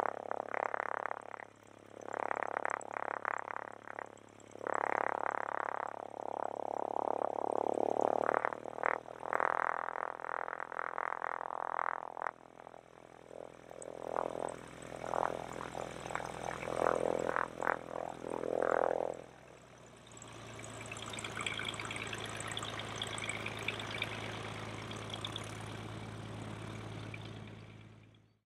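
Stinson 108-2's six-cylinder Franklin piston engine idling on the ramp, its sound rising and falling unevenly. It settles into a steadier hum, then fades out near the end.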